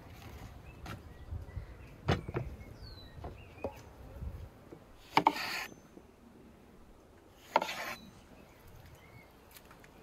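Large knife cutting lemons in half on a wooden cutting board: a few light knocks, then two louder chops about two seconds apart as the blade goes through the fruit and strikes the board.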